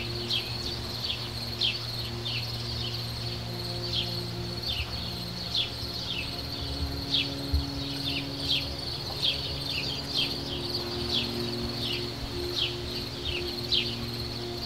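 Garden ambience: a steady high insect trill, with many short downward-sliding chirps at an uneven pace of one or two a second. Faint low sustained tones run underneath.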